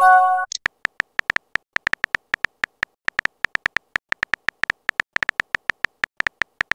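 Chat-app sound effects: a short electronic chime as a message is sent, then a steady run of synthetic keyboard tap clicks, several a second, as the next message is typed.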